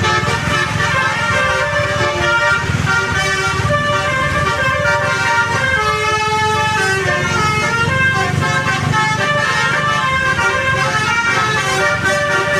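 Musical 'basuri' (telolet) air horns on Indonesian buses playing melodies against each other, several tunes overlapping in stepping notes, over the low rumble of the bus engines.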